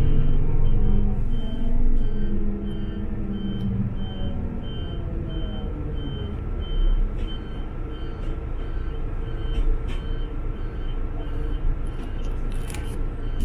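Bus engine running under a high electronic warning beep that repeats about one and a half times a second, then stops near the end, where there is a short rattling clatter.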